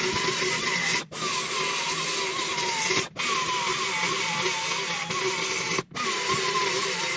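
Handheld power tool running under load, a steady hiss with a pitch that wavers as it is worked, typical of grinding or sanding on bodywork. It cuts out briefly about a second in, again about three seconds in, and near six seconds.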